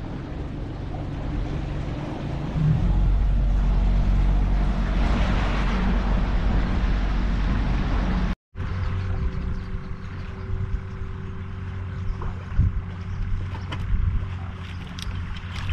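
A steady low rumble, heavier from about three seconds in. After a short dropout about eight seconds in, a quieter steady hum with a few light clicks and taps.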